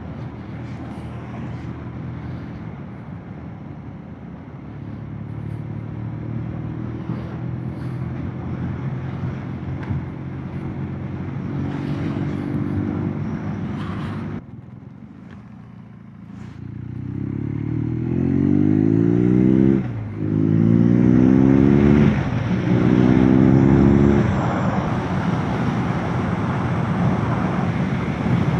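Motorcycle engine running at a steady cruise. About halfway through the throttle is closed and it quietens for a couple of seconds. It then accelerates with rising pitch through several quick upshifts, each marked by a short dip.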